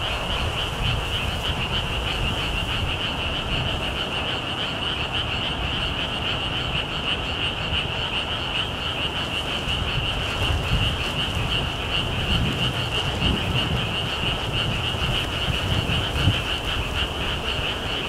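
A chorus of frogs calling: a steady, dense, high trilling that runs on without a break. Strong gusty wind buffets the microphone underneath it.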